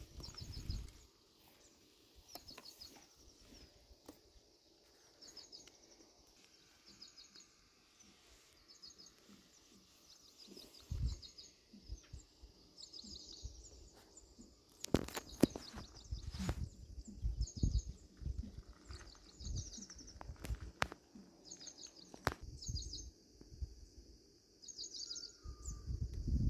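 A songbird calling in quick runs of short, high chirps, repeated every second or two. Scattered low rumbling bursts come through as well, loudest about halfway through.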